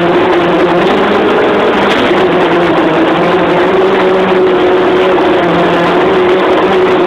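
A fishing boat's engine running steadily and loud, a constant hum with a rushing noise over it.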